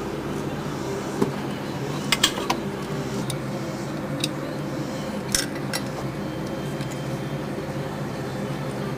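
Irregular metallic clicks and clinks of a wrench working the 13 mm timing-belt tensioner nut, about eight in the first six seconds, over a steady low hum.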